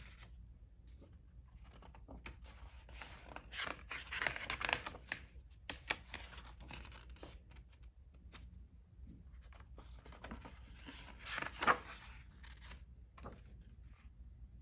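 Pages of a hardcover picture book turned by hand: two spells of paper rustling and sliding, one about four seconds in and a louder one around eleven to twelve seconds, with light taps and brushes of fingers on the paper in between.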